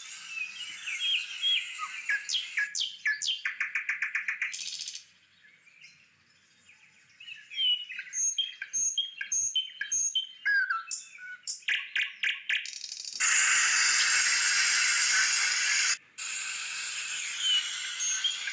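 Small birds chirping and twittering. A fast clicking trill comes about two to five seconds in, and a loud, steady hiss takes over for about three seconds past the middle before cutting off sharply.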